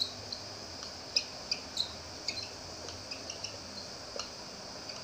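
Marker pen writing on a whiteboard, squeaking in a string of short, high chirps at irregular intervals, about three a second, as the strokes of the letters are drawn.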